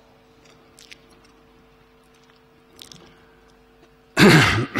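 A pause in a man's speech into a podium microphone: low steady room hum with a few faint small clicks, then, near the end, one loud short burst of his voice.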